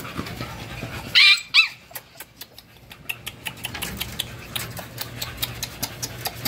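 American bully puppies, six weeks old, give two short high yips about a second in, then a run of quick clicks and scratches as they paw and climb at the chicken-wire pen front.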